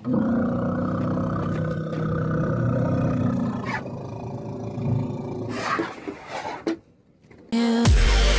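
An elephant gives a long, low rumbling call lasting about four seconds, then trails off. Electronic music with heavy bass starts near the end.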